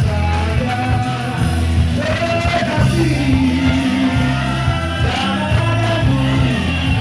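Live band music with a male singer singing into a microphone over bass and drums.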